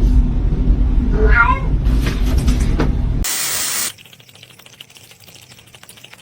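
A cat gives one short meow over loud low rumbling noise, then a short sharp hiss a little past the middle, after which it goes quiet.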